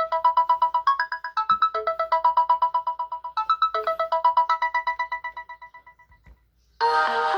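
Samsung Galaxy A03s ringtone: a quick pulsing pattern of bright, bell-like notes, about eight a second, that fades away over the last couple of seconds. Near the end a different, fuller electronic ringtone starts abruptly.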